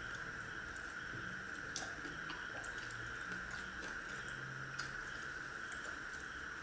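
Quiet eating sounds of two people eating paratha by hand: soft chewing and tearing of bread, with a couple of sharp light clicks, about two and five seconds in, over a steady high hiss.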